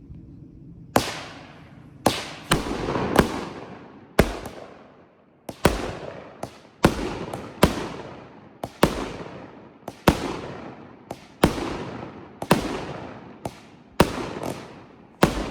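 A Burnout 16-shot firework cake firing: after about a second, a rapid series of sharp bangs, roughly one to two a second, each trailing off before the next.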